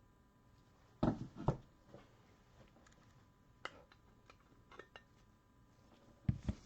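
Hard plastic clacks and knocks from magnetic card holders being sorted through and handled: a few short, sharp clicks at irregular spacing, the loudest pair about a second in and another pair near the end.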